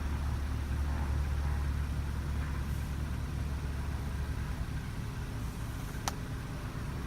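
Steady low rumble of an idling engine, with one sharp click about six seconds in.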